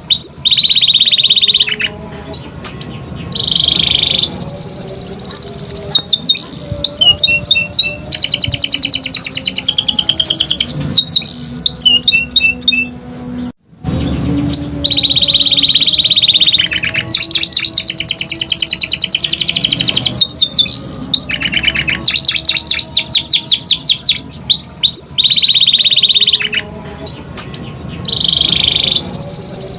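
Domestic canary singing: long, very fast rolling trills, chirps and short rising whistled notes. The song breaks off for a moment about halfway through.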